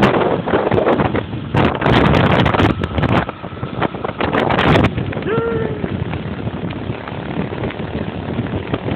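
Wind buffeting the microphone in heavy gusts over a steady rushing noise, easing after about five seconds, with a brief short cry just after.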